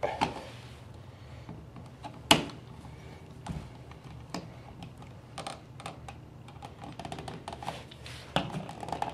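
An outlet cover plate being screwed on: faint, scattered clicks and taps of a screwdriver on the plate's centre screw, with one sharper click about two seconds in.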